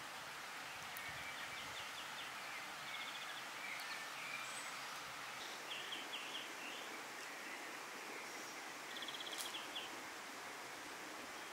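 Outdoor ambience: a steady background hiss with small birds calling, short runs of quick high notes repeating every few seconds.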